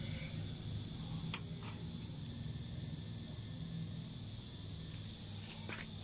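A low, steady hum with a high, faint chirring behind it, and a single sharp click just over a second in.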